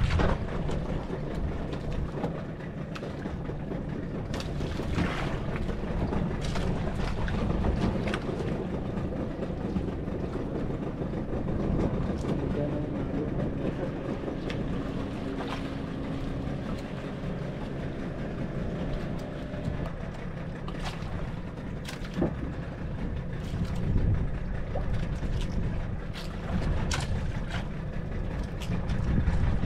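Fishing boat at sea: a steady low engine rumble under wind and water noise, with scattered clicks and knocks on board.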